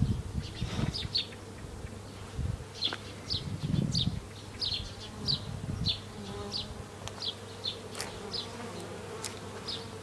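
Honeybees buzzing around their hives in a steady hum. From about three seconds in, a run of short high chirps repeats about one or two times a second.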